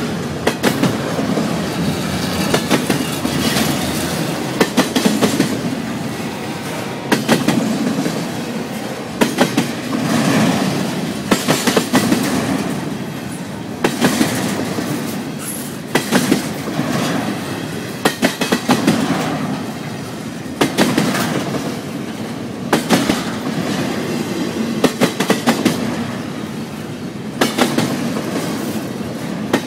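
Double-stack intermodal freight train's well cars rolling past: a steady rumble broken by clusters of sharp wheel clicks about every two seconds.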